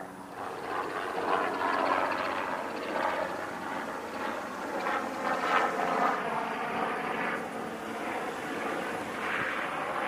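A steady engine drone with a faint pitched hum, swelling and fading gently in level.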